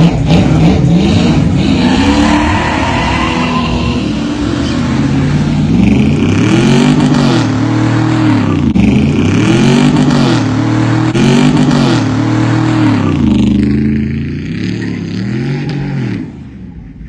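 Car engine revved over and over, its pitch climbing and falling back about every second and a half. It gets quieter a few seconds before the end and then drops away.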